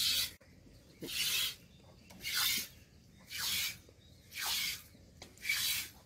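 Cow being milked by hand: jets of milk squirting into a metal pot, a hissing spurt with each pull on the teat, about once a second, six times.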